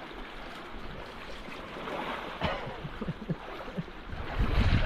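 Fast stream water rushing, with a few splashes, a sharper one about halfway through. A louder low rumble comes in near the end.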